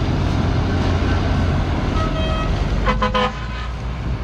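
Heavy diesel machinery running steadily: a New Holland T7 tractor hauling a sugarcane trailer alongside the cane harvester. A horn toots twice, briefly, about two and three seconds in.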